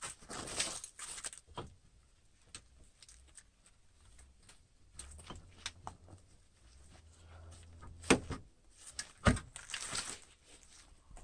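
Scattered clinks and taps of hand tools on metal, then two sharp metal knocks about a second apart near the end, as the lower ball joint is worked at to separate it from the steering knuckle.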